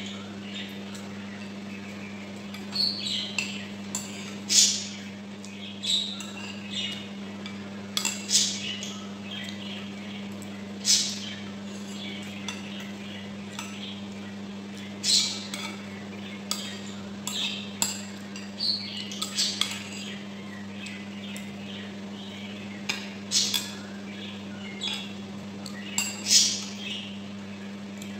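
Close-up eating sounds: a spoon and fork clinking and scraping on ceramic bowls, with irregular mouth noises of chewing and slurping saucy ground pork. A steady low hum runs underneath.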